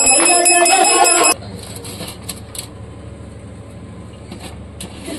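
Aarti being sung over a steadily ringing bell, both cutting off abruptly about a second in. After that there is only low room noise with a few faint clicks and taps.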